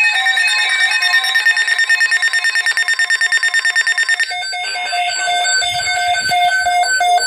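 Emergency Alert System alert tones: an electronic alarm pulsing rapidly over steady tones, changing about four seconds in to a steady repeated beeping tone.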